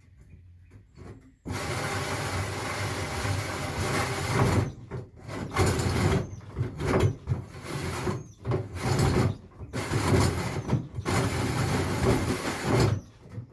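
Power drill cutting a hole under light pressure. It starts about a second and a half in and runs in long stretches broken by several brief pauses, stopping just before the end.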